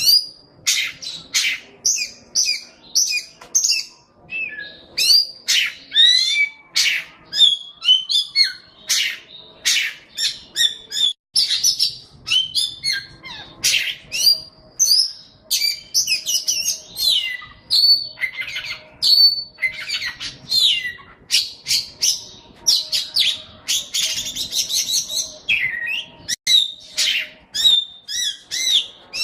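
A songbird singing a fast, varied song of short high chirps, trills and whistles, with hardly a pause.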